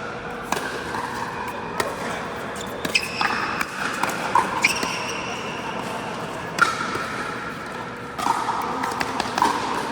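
Pickleball rally: paddles striking the hard plastic ball, giving sharp, irregular pops about once a second, echoing in a large indoor hall.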